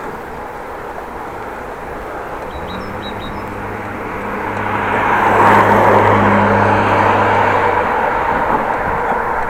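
Steady wind and rolling noise of a bicycle ride. A motor vehicle's engine hum comes up and passes close by, loudest just past halfway.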